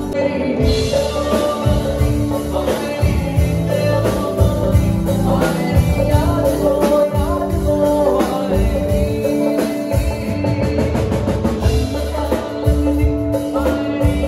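Live band playing a song: electric guitar, bass guitar, drum kit and dhol, with a male singer.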